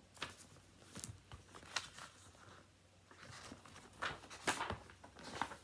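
Paper pages of a children's picture book being turned and handled: a few short rustles, the loudest about four seconds in.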